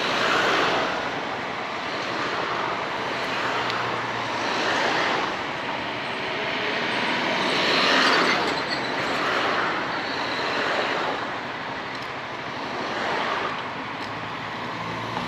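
Wind rushing over the rider's microphone on a moving Honda ADV 350 scooter, with its single-cylinder engine running faintly underneath. The rush swells and eases several times.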